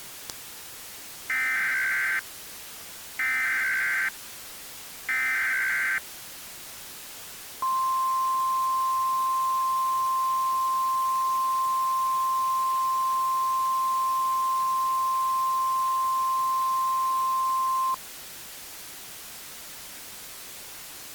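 NOAA Weather Radio EAS alert tones: three short bursts of SAME data header tones, then after a pause the steady 1050 Hz warning alarm tone held for about ten seconds, over a constant radio hiss. The header and alarm tone are the signal that sets off a flash flood warning on weather radios.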